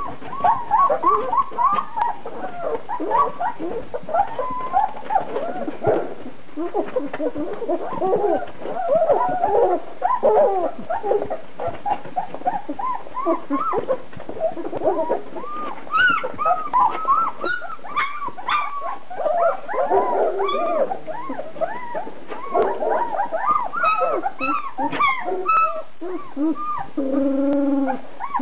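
Two-week-old German Shepherd puppies whimpering and squealing while they nurse: many short, high, rising-and-falling calls overlapping almost without pause, with one longer, lower, steady cry near the end.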